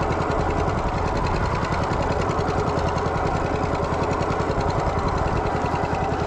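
Small boat engine running steadily, with a fast, even throb.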